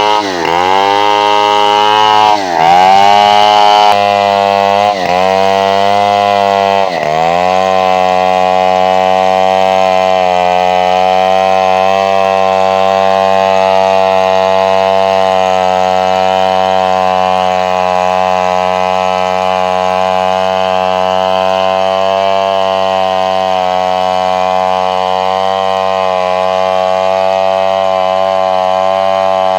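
Chainsaw engine running hard, its pitch dipping sharply and climbing back four times in the first seven seconds, then holding a steady high pitch.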